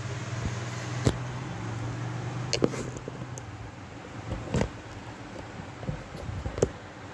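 A few sharp clicks and knocks of hard objects being handled, with a steady low hum that fades out about halfway through.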